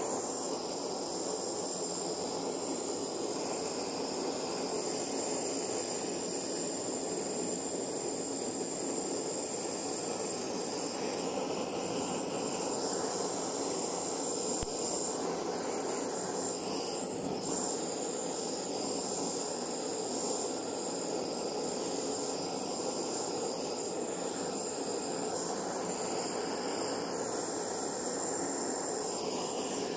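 Brass-nozzled butane gas torch burning with a steady, even rushing hiss.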